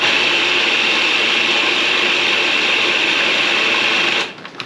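Food processor running steadily while it blends basil pesto, then switching off about four seconds in.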